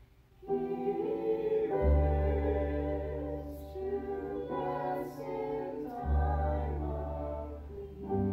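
Mixed voices singing in harmony, accompanied by piano and bowed strings, with a double bass giving deep sustained notes. The music comes in after a brief pause, about half a second in.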